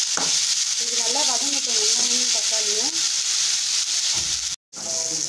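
Chopped onion and tomato sizzling in hot oil in an aluminium kadai, stirred with a metal slotted spoon that clicks and scrapes against the pan. The sizzle stops dead for a moment near the end.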